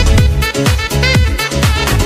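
Background electronic dance music with a steady beat, about two beats a second.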